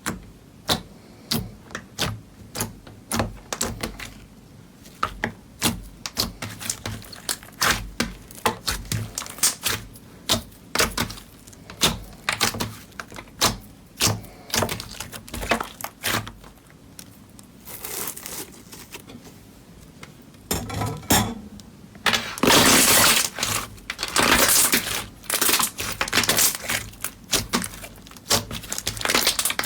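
Slime being squeezed, poked and stretched by hand, making a rapid run of sharp pops and clicks, with a louder, denser stretch of crackling about two-thirds of the way through.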